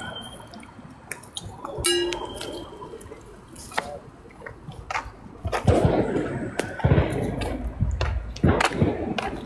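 Voices and scattered knocks and handling noise on a phone's microphone. The voices and a low rumble grow louder about halfway through.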